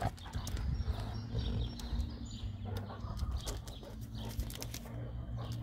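Large dogs' claws clicking and scuffing on stone patio pavers as they walk, the clicks thickest in the first couple of seconds, over a steady low hum.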